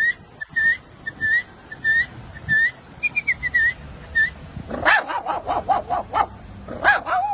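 A dog whimpering in short, high squeaks about twice a second, then yapping in a quick run of barks, with one more bark near the end.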